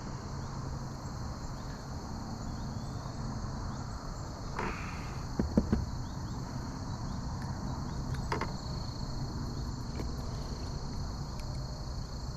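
Steady high-pitched insect chorus with a constant tone, broken by a few short knocks about a third of the way through and again later on.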